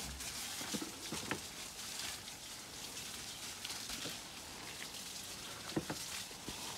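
Water from a garden hose spattering onto soil and dry leaves: a steady hiss, with a few light clicks about a second in and again near the end.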